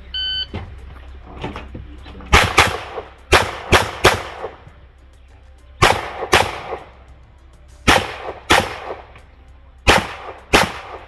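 A shot timer beeps once at the start signal. About ten gunshots follow, mostly fired in quick pairs, each a sharp crack with a ringing echo. This is a timed practical-shooting stage shot from behind a car prop.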